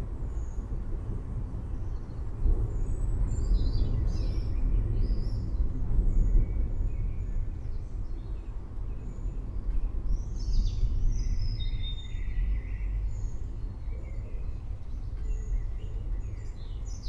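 Low, steady rumble of a thunderstorm that swells and eases, with birds chirping now and then above it.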